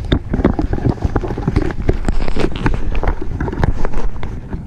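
Handling noise from the camera being grabbed and moved: irregular knocks and rustles against the microphone, over low wind rumble.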